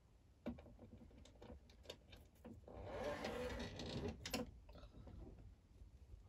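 Handling sounds of clear vinyl and a zipper being smoothed and pressed flat on a sewing-machine table: scattered small taps and clicks, with a rustle of the plastic sheet about three seconds in that ends in a sharp click.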